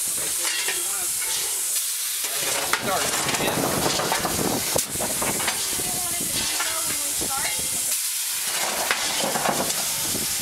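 Steady hiss of steam inside a steam locomotive's cab, broken by a few short sharp clicks.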